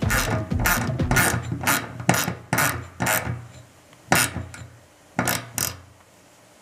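Socket ratchet wrench being worked in short strokes, a brief burst of clicking with each swing, about two a second at first, then three slower strokes near the end.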